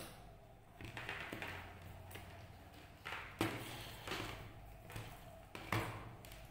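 Light taps and knocks of circuit boards, wires and a plastic multimeter being moved about and set down on a wooden tabletop, several in a row at irregular intervals.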